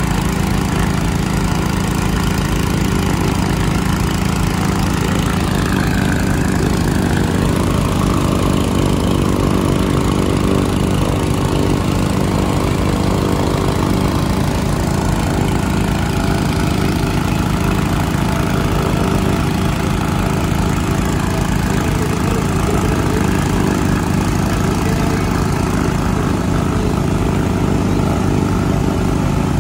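Small four-stroke gasoline transfer pump engine running steadily at one constant speed, pumping liquid through a hose into a crop-duster's hopper.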